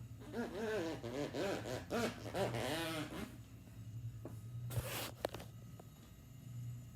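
A person's voice making a warbling, wavering noise, its pitch swinging up and down about four times a second for roughly three seconds. A couple of short scrapes follow near the end, over a steady low hum.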